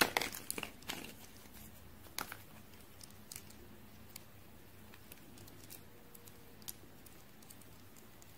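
Small plastic toy parts clicking and crinkling as fingers handle them, busiest in the first second, with another click about two seconds in. After that there are only a few faint ticks of light handling.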